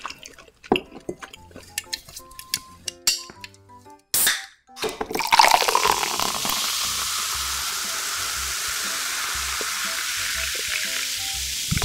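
Water running steadily, as from a tap into a sink, starting about five seconds in. Before it come a few light clicks and clinks over soft background music.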